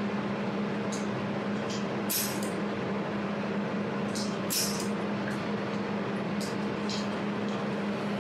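Steady hum of a 200W jewelry laser welding machine, broken by irregular sharp, high-pitched snaps, about eight of them, typical of the welder's laser pulses striking the metal.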